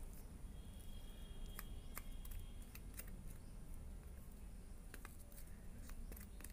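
Faint, scattered clicks and taps of hands and a utensil stuffing spiced potato filling into capsicums, over a low steady hum.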